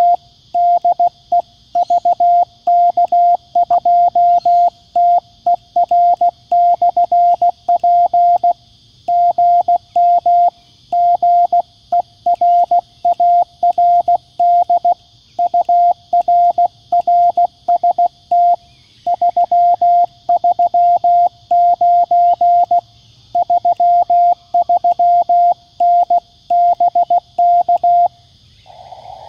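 Morse code sidetone from a QRP Labs QCX-mini CW transceiver as it keys a transmission at about 16 words per minute: one clean, steady, mid-pitched tone switched on and off in dits and dahs with short word gaps, spelling out a greeting and signal report ('GM GERARD UR RST 339 33N BK'). It stops about a second before the end, over a faint steady hiss.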